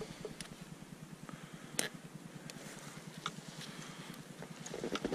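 Faint metallic clicks and clinks of a steel body-grip trap and its ring and chain being handled in gloved hands, the sharpest click about two seconds in, over a faint low hum.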